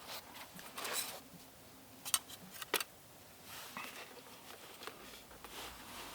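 Soft clicks and scrapes of a knife and plate being handled, four short clicks in the first three seconds with quieter scraping between.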